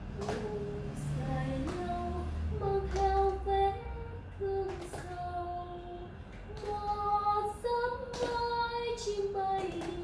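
A woman's voice singing a slow Vietnamese song unaccompanied, holding long notes, while the group claps along in slow time, about one clap a second.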